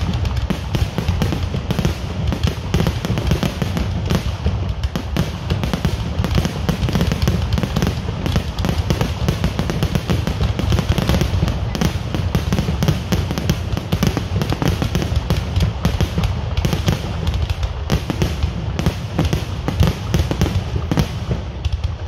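Fireworks finale: a continuous barrage of rapid bangs and crackling with deep booms underneath, never letting up.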